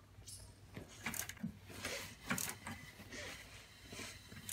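Wrench turning the crankshaft of a Ford 5.4L 3V V8 by hand, with scattered light metallic clicks and clinks from the tool and the engine as it rotates. The crankshaft is being brought to the keyway-at-6-o'clock position to put the camshafts in neutral.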